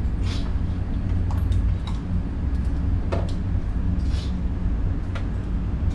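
Steady low rumble of an indoor range's ventilation. Over it come about six scattered sharp clicks and knocks from gear being handled at the shooting bench, none of them loud enough to be a shot fired nearby.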